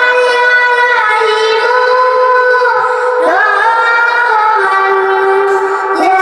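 A young girl singing a Bengali gojol (Islamic devotional song) solo, holding long notes and sliding in pitch between phrases.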